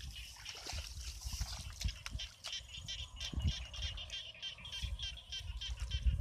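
Bare feet stepping through soft wet mud, with low squelching thumps, over a background of rapid, repeated high chirping calls.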